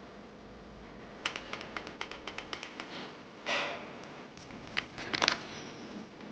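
Typing on a Kodessa KDA61 60% mechanical keyboard with brown switches. A quick run of keystrokes starts about a second in, there is a short rustle midway, then a few more keystrokes near the end.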